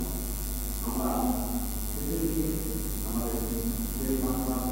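A man speaking into a headset microphone in short phrases, over a steady low electrical hum.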